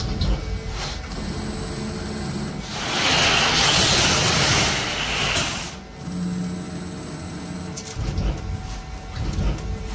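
CNC automatic sheet-metal bending center running: a low mechanical rumble with repeated knocks and a thin high whine, broken from about three to six seconds in by a loud burst of air-like hiss.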